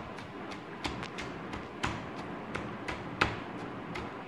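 A pestle pounding mint leaves and lemon pieces in a bowl, muddling them for a mojito. It makes repeated short taps, about two or three a second, with a louder knock just before 2 s and another just after 3 s.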